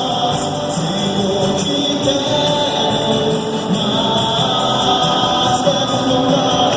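Live band playing a song with sung vocals over a steady beat, heard during a sound check before a show.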